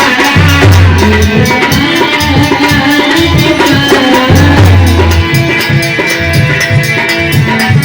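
Instrumental passage of a Hindi Bhim geet folk song: a fast drum and shaker rhythm with held melody notes and deep bass notes.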